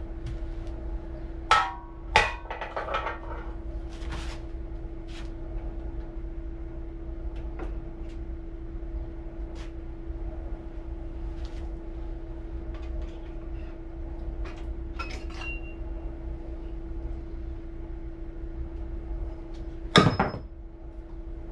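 Metal-on-metal clanks and taps from steel pins being worked into the quick coupler of a QK16R mini excavator. Two sharp ringing strikes come about a second and a half to two seconds in, then scattered light taps, then one loud ringing strike near the end, all over a steady hum.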